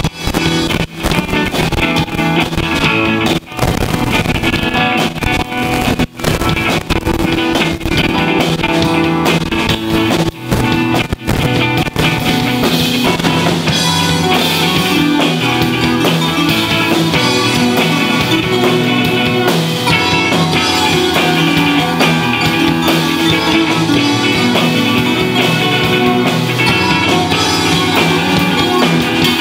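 Live rock band playing: electric guitars through amps, a Kawai keyboard and a Pearl drum kit. There are several brief stops in the first dozen seconds, and then the band plays on without a break.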